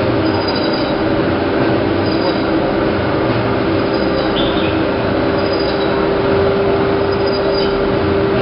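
Bag-cutting machine running steadily: a continuous mechanical hum with a faint short high tone that recurs about every second and a half to two seconds as it cycles.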